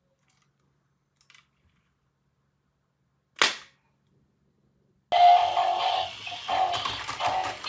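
A faint click, then a single sharp bang like a toy gun's shot about three and a half seconds in. From about five seconds in, loud electronic music with steady tones.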